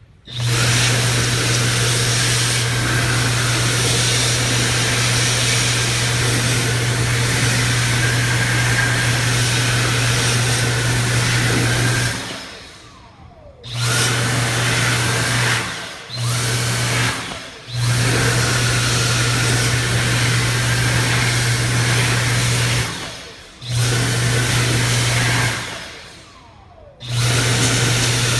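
Commercial hand dryer blowing with a steady low hum and rushing air, starting just after the opening. It cuts out and starts again about five times, each stop winding down with a falling whine as the motor slows.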